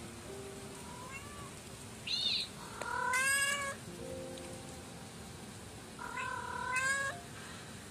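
Kitten trapped inside an air-conditioner outdoor unit meowing: a short high cry about two seconds in, then two long, loud meows. Soft background music plays underneath.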